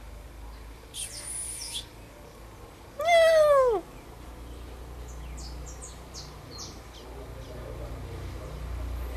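A cat meows once about three seconds in: a single loud call that falls in pitch and lasts under a second. A brief high-pitched squeak comes before it, and faint short high chirps follow.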